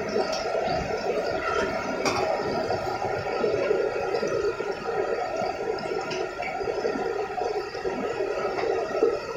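Chicken pieces deep-frying in large pans of oil: a steady, even sizzle of bubbling oil.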